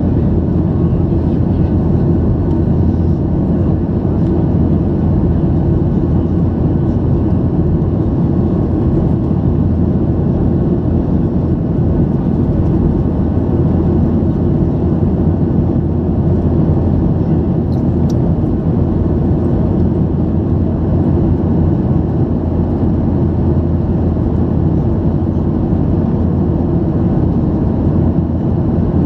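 Steady low drone of a Boeing 737-800 in flight, the engines and airflow heard from inside the passenger cabin.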